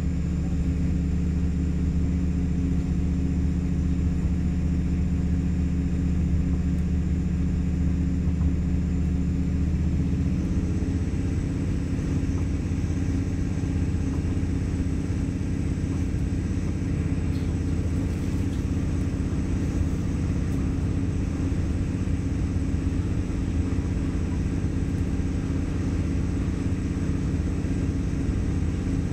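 AKN diesel railcar running along the track: a steady diesel engine drone with rumbling running noise, and the engine's note shifts about ten seconds in. The recording is overloaded, the microphone set too hot for the loud surroundings.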